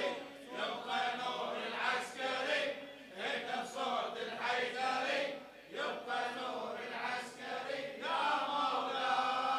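A group of male mourners chanting the refrain of a Shia latmiyya lament in unison, in answer to the lead reciter's call.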